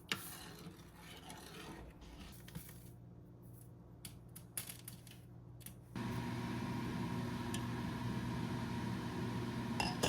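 Light clicks and taps of kitchen things being handled, then about six seconds in a kitchen appliance motor switches on and runs with a steady hum.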